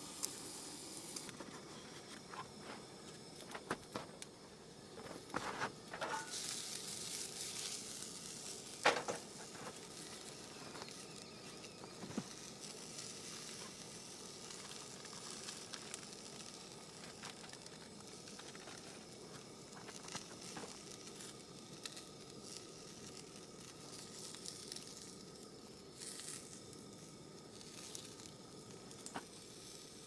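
Hot dogs sizzling steadily in a frying pan on a propane camp stove. A few clicks and knocks come from handling utensils and food, the loudest about nine seconds in.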